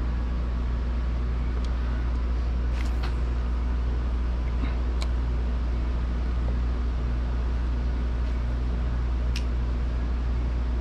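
A steady low mechanical hum, like a running motor, with a few faint light clicks.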